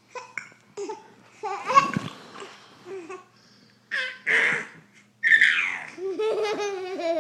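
A small child laughing and giggling in separate bursts, ending in a run of rapid, high giggles near the end.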